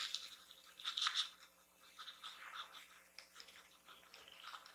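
Black teardrop makeup sponge dabbed against the skin of the face to blend foundation: faint, irregular soft pats in small clusters.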